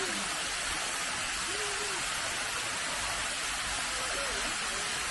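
Small waterfall running down a rock face into a shallow pool: a steady rushing hiss of falling water. A few faint short pitched calls come through it, near the start, about a second and a half in, and near the end.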